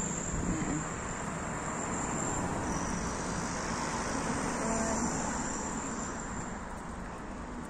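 Steady rush of road traffic noise, a little louder in the middle as vehicles pass, with a faint high whine over it.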